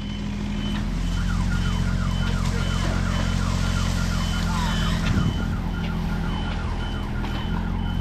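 A machine engine running steadily, with a high warning beep sounding on and off at an even pace over it, like tree-service equipment at work.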